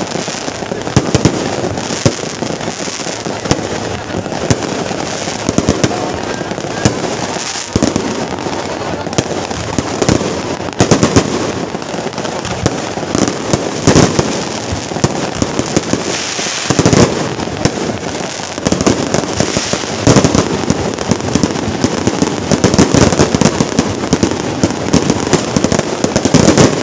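Strings of firecrackers going off in a dense, continuous crackle of rapid sharp bangs, with louder single cracks standing out here and there.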